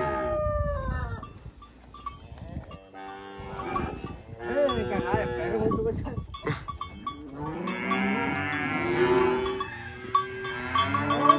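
Gyr cattle calling: several long, overlapping moos and bawls in three bouts, with short gaps between.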